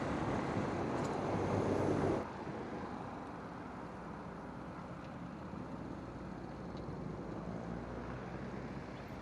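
Motorcycle riding with wind rushing over the microphone and the engine running underneath; the noise drops suddenly about two seconds in and carries on lower and steady.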